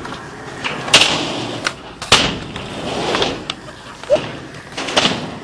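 Skateboard wheels rolling on concrete, broken by sharp board clacks and slaps, the loudest about one and two seconds in.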